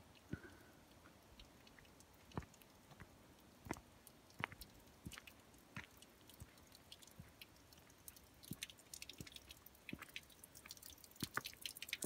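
Faint footsteps on stony, gravelly ground: scattered short crunches and clicks that come more often toward the end.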